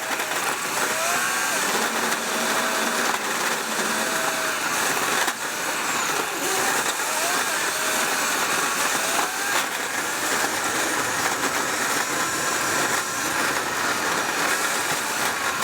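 Dump truck driving on a dirt road: a steady rushing of road and wind noise with faint wavering whistles on top.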